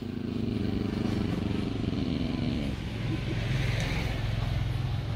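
Motorcycle engine running close by, a steady low hum whose pitch drops about halfway through.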